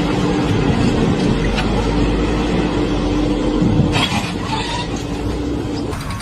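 A vehicle or machine engine running steadily with a low rumble, with a few sharper knocks about four seconds in.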